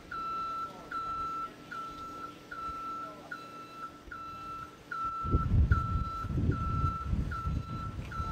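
Heavy-equipment back-up alarm beeping steadily at one pitch, about three beeps every two seconds, typical of a crane moving a load. About five seconds in, a loud, uneven low rumble joins it.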